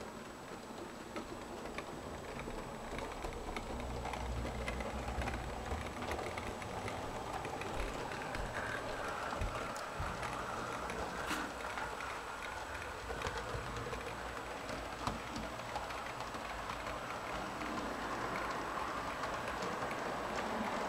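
Model steam locomotive running along the layout track, its small electric motor and gears whirring and its wheels clicking over rail joints and turnouts. It grows louder over the first few seconds as it comes closer.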